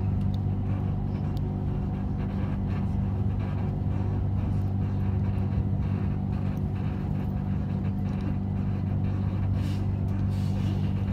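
Electric commuter train (Siemens Desiro EMU) running at speed along an elevated track, heard from inside the carriage: a steady low hum with running rumble underneath.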